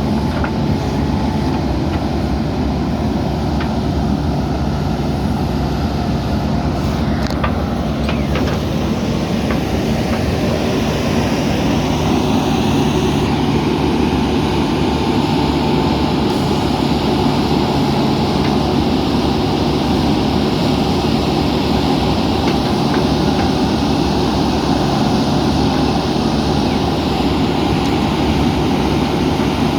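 Diesel engine of a JCB 3DX backhoe loader running steadily as the machine works, getting a bit louder from about twelve seconds in.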